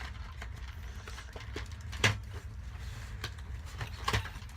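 Toy packaging being handled and opened by hand: scattered clicks and taps, the sharpest about two seconds in and a few more near the end, over a steady low hum.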